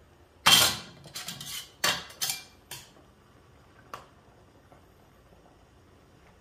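Aluminium camping pots and a ceramic mug clattering: a loud clink about half a second in, a quick run of clinks and knocks over the next two seconds, and one last tap about four seconds in.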